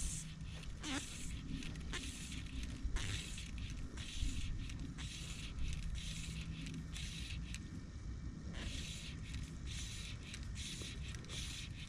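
Irregular scraping rustles of a fly line being stripped in by hand during the retrieve, over a steady low rumble.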